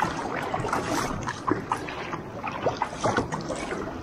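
Sea water lapping and splashing against the plastic hull of a sit-on-top kayak on choppy water, a steady wash with many small irregular slaps and drips.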